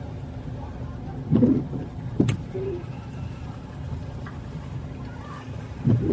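Steady low rumble of a vehicle in motion, broken by a low thump about a second and a half in, a sharp click soon after, and another thump near the end.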